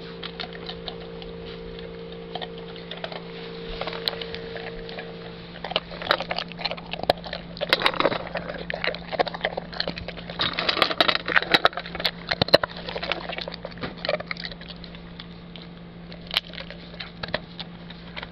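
A dog eating dry kibble from a metal bowl: irregular crunching and the clicking and clinking of kibble against the bowl. It starts a few seconds in, is busiest in the middle, and thins out near the end.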